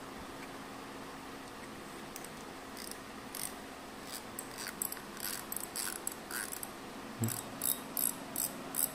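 Fishing reel clicker ticking as the spool is turned, sounding through a newly fitted spring chosen for a louder, sharper click. A few scattered ticks about three seconds in give way to a steady run of about three ticks a second.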